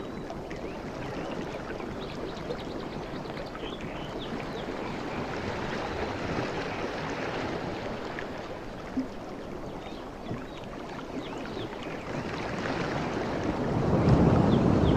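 Ocean waves washing in with a steady rush that swells twice, loudest near the end as a bigger wave breaks. Birds chirp faintly over the surf.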